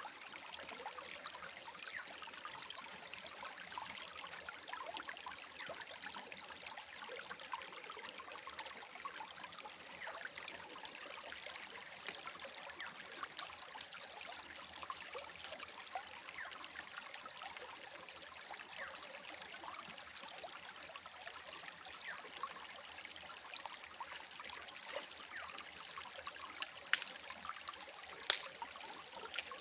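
A stream trickling and flowing over stones, with a few sharp clicks near the end.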